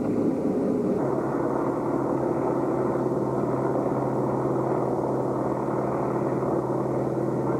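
Steady engine drone of a tour vehicle heard from inside it: an even, constant hum that settles in about a second in.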